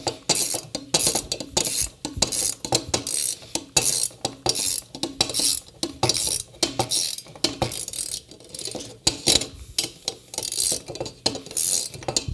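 Hand ratchet clicking in repeated short bursts as a bolt is turned down into a hex standoff, with light metal clinks of the tool against the aluminum battery-mount plates.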